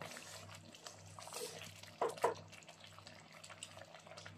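Wooden spatula stirring rice in a pot of water, with the liquid sloshing and small knocks of the spatula against the pan, the two strongest about two seconds in.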